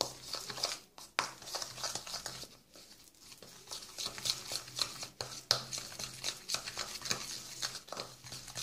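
Metal spoon stirring a thick, oily spice paste in a small plastic bowl: a quick, uneven run of clicks and scrapes as the spoon knocks and drags against the bowl.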